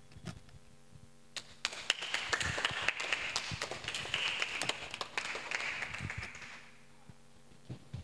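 Applause: a group clapping, with a few scattered claps first, swelling about a second and a half in and dying away about a second before the end.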